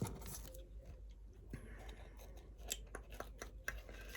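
Faint rustling and small clicks of paper cards and small packaging being handled.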